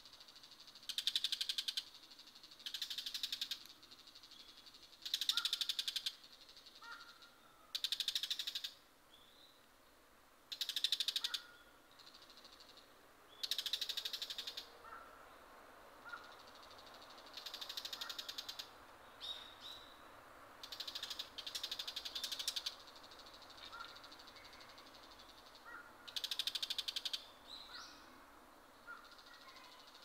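Male bull-headed shrike giving harsh, rapid chattering calls: bursts of about a second, each a fast run of repeated high notes, coming every two to four seconds.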